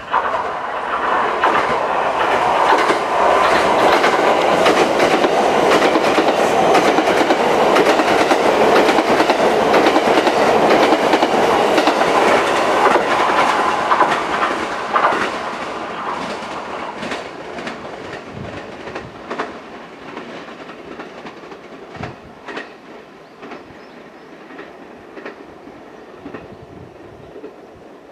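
A JR 287-series seven-car electric express train passes at speed: a loud, steady rush of wheels and running gear, dotted with clickety-clack as the wheels cross rail joints and points. After about fifteen seconds it fades away as the train recedes, and scattered wheel clicks carry on.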